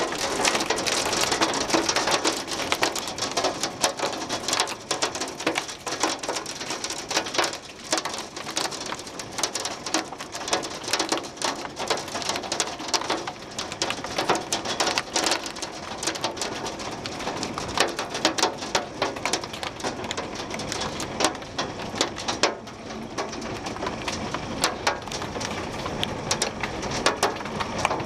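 Hailstorm: hail and heavy rain pelting down, a steady rush packed with dense, irregular clicks of hailstones striking surfaces.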